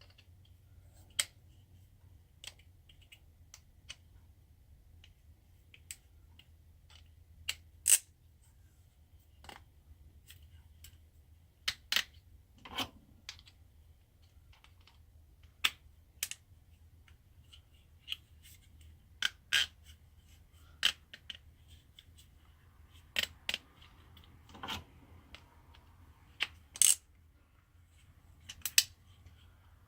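Irregular sharp clicks and clinks, a few much louder than the rest, from metal sockets and plastic snap clips being handled and clicked onto a socket rail.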